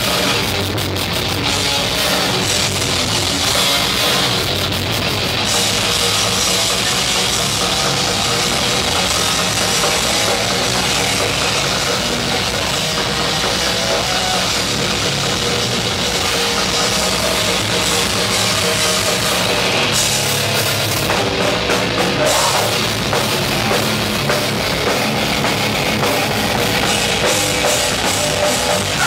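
A crust punk/grindcore band playing live and loud: heavily distorted electric guitars and bass over a full drum kit, as one dense, unbroken wall of sound.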